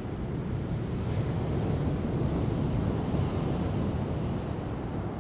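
Ocean waves breaking in a rushing, rumbling wash, with wind buffeting the microphone. The rush swells about a second in and eases toward the end.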